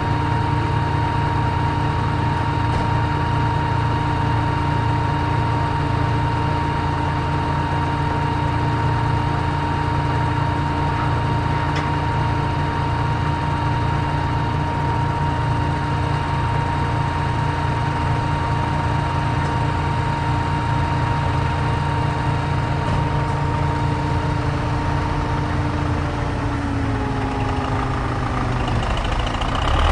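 Heavy truck engine idling steadily with a constant whine over it, which slides a little lower in pitch near the end.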